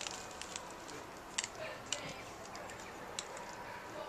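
A few faint, sharp ticks and crunches of footsteps on burnt debris and paving, scattered a second or so apart over a low steady hiss.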